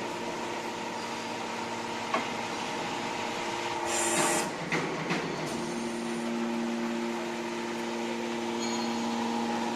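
135-ton hydraulic scrap metal baler running, its electric motor and hydraulic pump giving a steady hum. There is a single knock about two seconds in, and a brief loud rush of noise about four seconds in. After that the hum is stronger, as the pump works under load.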